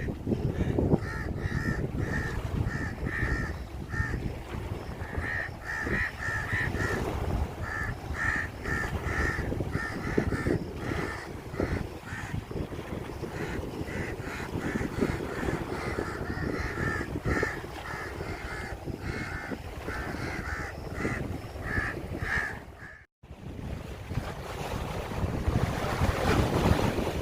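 Birds calling over and over in short, paired-note calls, over a steady low rumble of wind on the microphone. The calls stop shortly before a brief dropout near the end, after which only the wind rumble is left.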